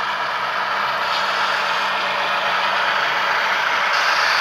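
Model railroad diesel locomotives passing close by, a steady diesel engine sound from the models mixed with the whirr of their motors and wheels on the track, getting a little louder as the lead units go past.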